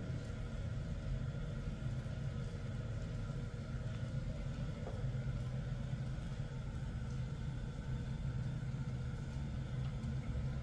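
A steady low hum, like a motor running, with a few faint clicks around four and five seconds in.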